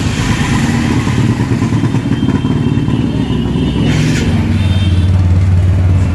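A vehicle engine idling close by, a steady low hum with fine rapid pulsing that grows a little louder about four seconds in.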